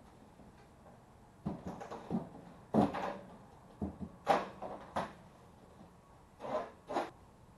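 A run of irregular knocks, clatters and scrapes, about seven in five seconds, from hands and tools working on material.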